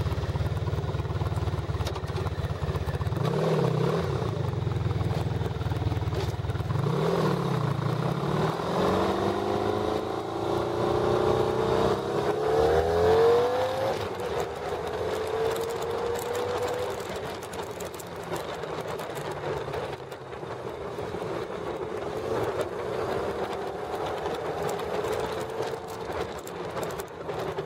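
Honda V45 Magna's V4 engine under way on the road: two short revs a few seconds apart, then a long rise in pitch as it accelerates, loudest about two thirds of the way through, before settling to steadier, quieter cruising.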